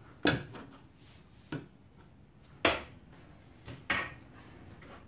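About five sharp wooden knocks and clacks at uneven intervals, two of them loud, as quick-release bar clamps and tools are handled and set against a glued-up plywood frame.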